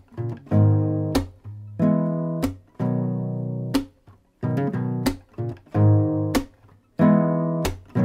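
Guitar music: strummed chords with sharp strokes that ring and fade, several of them stopped short, in a loose rhythm.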